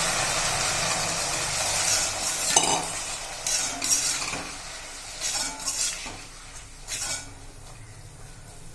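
Beans and peanuts sizzling loudly in a hot kadai as the peanuts' cooking water goes in, the hiss dying down over the first few seconds. Then a spoon stirs the pan, scraping and knocking against the metal several times.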